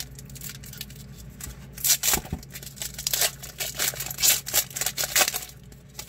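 A trading-card pack wrapper being torn open and crinkled by hand, a run of short rustles and crackles that is loudest about two seconds in and again around four to five seconds in.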